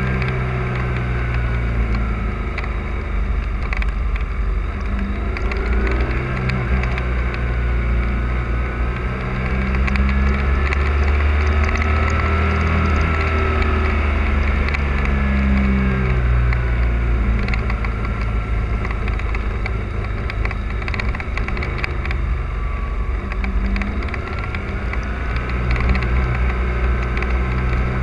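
Motorcycle engine running under way, its pitch rising and falling again and again, over a steady low rumble of wind on the microphone.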